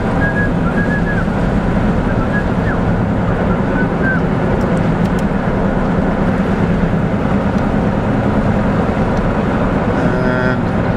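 Steady car engine hum and road noise heard from inside the car, with a few faint short high squeaks in the first few seconds.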